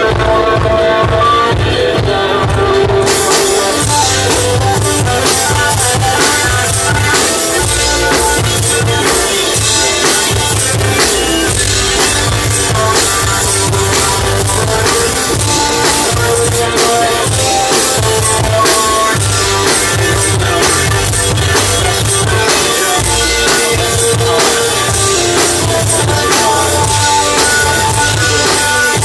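One-man band playing a song live: strummed guitar, a thumbed bass line and a drum kit, all played together by one performer. The drums with cymbals come in about three seconds in and keep a steady beat.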